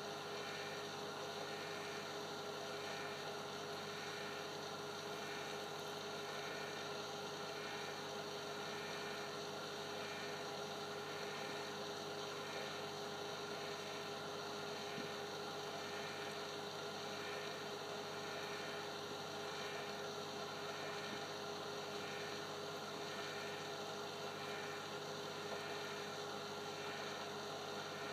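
Steady electrical hum with several fixed tones and a faint pulsing about once a second.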